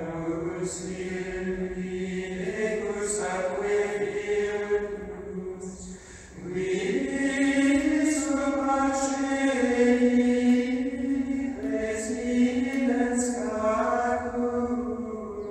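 Slow choral chant: voices hold long notes together and shift pitch every few seconds. The sound drops briefly about six seconds in, then swells louder.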